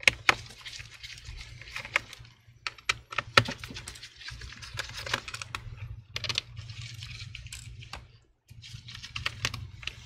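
Irregular light clicks and taps of a small Torx T5 screwdriver working the screws out of a laptop's bottom cover, with the small screws being handled, over a low steady hum.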